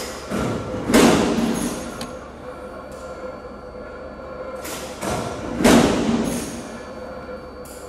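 LSN-RC6 automatic plastic bottle neck trimming machine running through its cycle over a steady hum with a faint steady tone. Twice, about five seconds apart, a short mechanical rush ends in a heavy thud.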